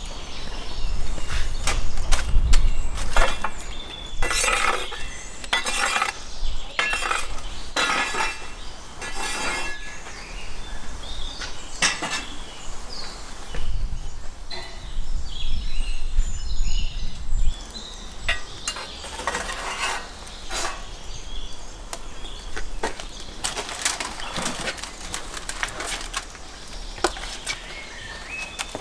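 A run of clinks, knocks and clatters from cookware and utensils being handled, with a wood fire crackling.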